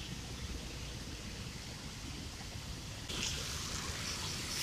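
Road traffic on wet asphalt: a steady low rumble of passing trucks, cars and motorcycles, with the hiss of tyres on the wet road getting louder about three seconds in.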